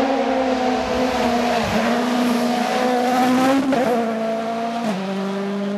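Ford Fiesta RS WRC rally car's turbocharged 1.6-litre four-cylinder engine running hard at high revs on a gravel road. The pitch holds steady for about four seconds, wavers briefly, then drops abruptly about five seconds in and holds at the lower pitch.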